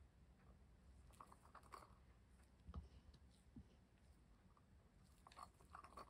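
Near silence with faint, scattered light taps and scrapes: a wooden lollipop stick scraping the last mixed resin out of a silicone pot into a paper cup. One slightly stronger tap comes about three seconds in, and a small cluster of taps comes near the end.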